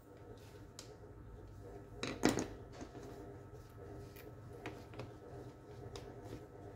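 Small clicks and knocks of the drill's DC motor and plastic housing parts being handled while they are lifted apart, with one louder clatter about two seconds in.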